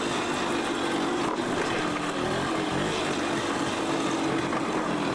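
ATV engine running steadily while riding along a trail, with a constant engine tone over rushing noise.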